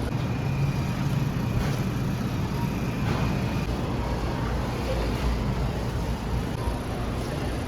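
Supermarket background noise: a steady low rumble with a faint high tone in the first half and a few light knocks.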